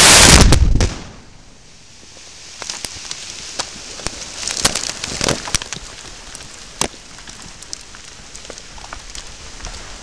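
ANFO ditch-line rock blast going off right at the start: one very loud boom that overloads the microphone and dies away after about a second. Then, for several seconds, scattered knocks and patters of rock and dirt falling back to the ground.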